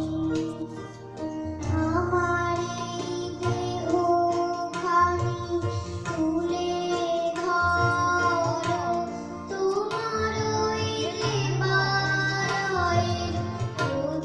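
A young girl singing a song into a microphone, her held notes wavering, over a steady low drone from a harmonium-type keyboard and regular strokes of hand drums.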